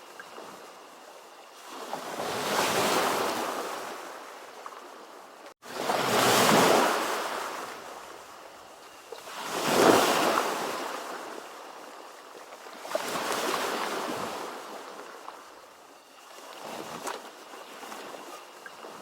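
Ocean waves surging and washing on shore, about five swells of surf noise rising and falling every few seconds. The strongest is about halfway through, and there is a split-second gap in the sound shortly before it.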